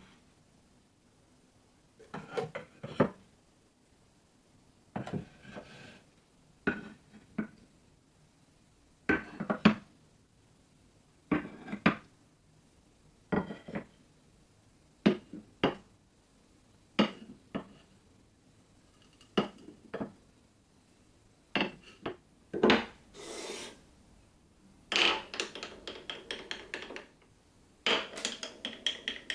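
Glass marbles rolling and clicking along a wooden marble run, in short clattering runs about every two seconds. Near the end many marbles clatter together at once.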